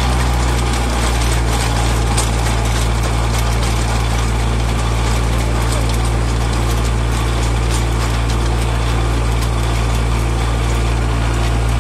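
Mini tractor engine running steadily at constant speed, driving a PTO-shaft post hole digger whose auger is turning in the soil. A steady low hum, with light scattered ticks and rattles over it.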